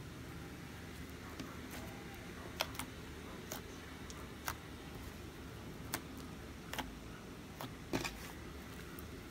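Thick slime being stretched and poked with the fingertips, giving a scattering of small sharp pops and clicks, about eight of them starting a couple of seconds in, over a steady low hiss.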